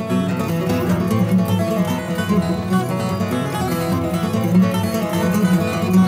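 Two steel-string acoustic guitars playing an instrumental duet: a steady stream of quick picked notes over a sustained bass.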